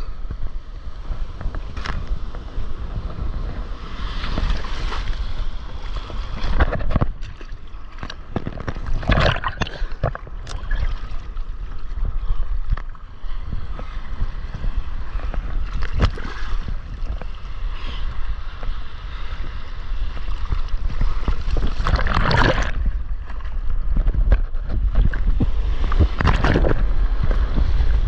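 Breaking surf and water splashing and sloshing right at the microphone of a board-mounted camera riding through whitewater, over a constant low rumble of wind on the microphone. Louder splashes surge every few seconds as waves wash past the board.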